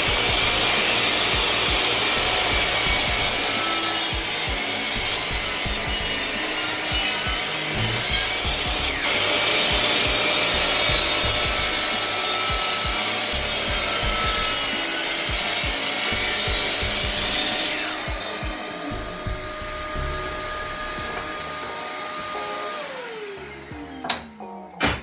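Electric mitre saw cutting through wood: a loud, harsh rasp of the spinning blade in the timber for most of the time. Near the end the motor is released and the blade winds down with a falling whine.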